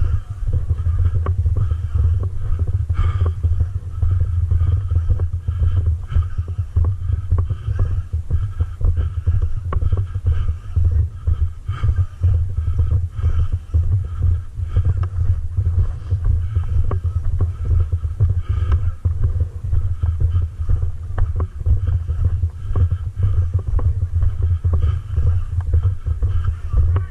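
A dense low rumble that flickers quickly and never lets up, with many small clicks scattered through it.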